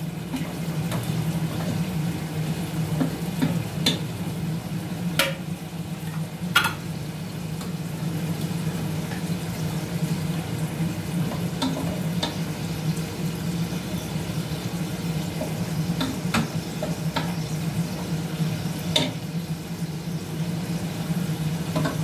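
Food sizzling in a pan as it is stirred, with a steady frying noise and a dozen or so sharp clicks of a utensil against the pan at irregular moments.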